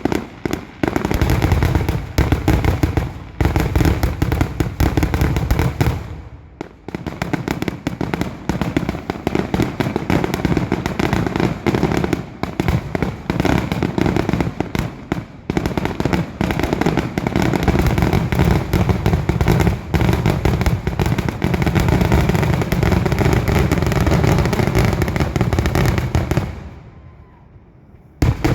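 Fireworks display: a dense, near-continuous volley of shell bursts, booms and crackle. There is a short lull about six seconds in, and a brief near-silent gap near the end before the bursts start again.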